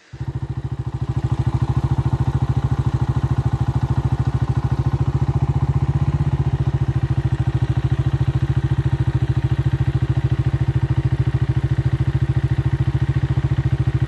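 Honda motorcycle's single-cylinder four-stroke engine idling steadily with an even, rapid beat.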